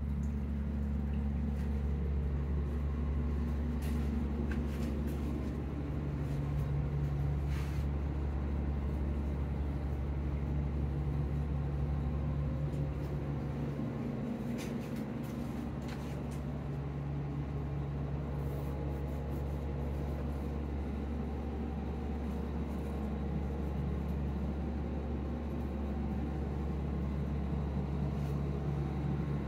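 A steady low machine hum with several fixed tones, like a fan or motor running, with a few faint clicks scattered through it.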